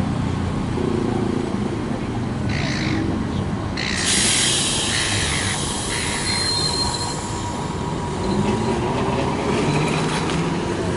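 Melbourne tram running on its rails: a steady rumble, then a loud grinding hiss of steel wheels on track from about four seconds in, with a brief high wheel squeal near the middle.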